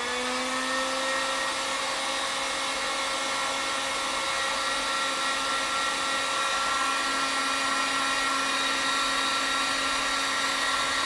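Drill Master heat gun blowing hot air on its high setting, its fan motor giving a steady whining hiss after rising to speed in the first moment.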